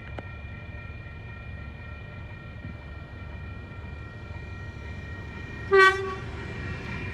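Oscar electric passenger train approaching a level crossing. A steady low rumble runs under a few steady high tones, and about six seconds in comes one short, loud blast of the train's horn.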